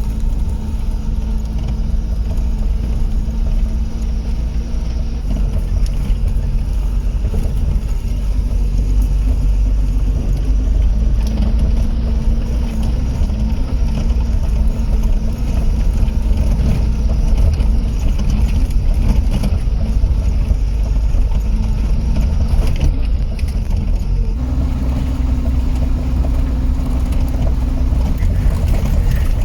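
Steady low rumble of a vehicle on the move: engine hum with road and wind noise, the hum shifting slightly in pitch now and then.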